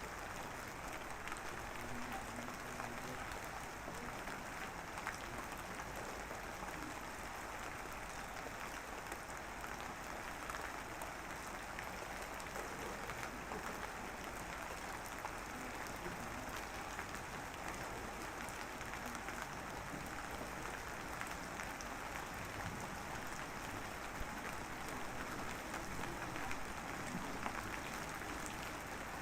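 Light rain, a drizzle, pattering steadily with many fine drops ticking.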